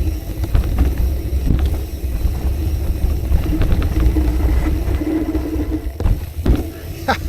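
Wind buffeting the microphone, a steady low rumble, with scattered clicks and rattles.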